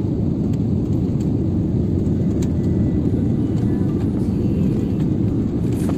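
Steady low rumble of engine and airflow noise heard inside the cabin of an Airbus A320-family airliner during landing, from short final onto the runway.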